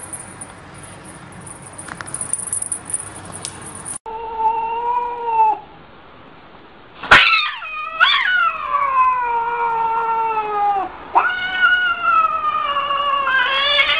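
Cat yowling: several long, drawn-out yowls with slowly falling pitch. The loudest starts abruptly about halfway through. This is the threatened caterwaul of a cat standing with its back arched.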